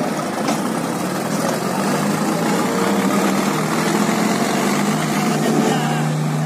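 Two John Deere tractor diesel engines running hard under full load in a tug-of-war, chained together, one straining so hard its front wheels lift; a steady, unbroken engine sound.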